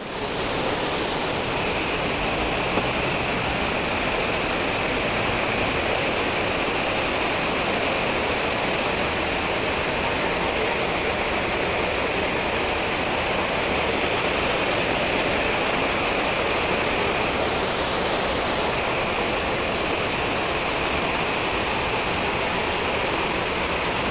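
Heavy rain pouring steadily onto roofs and trees, a dense, even hiss.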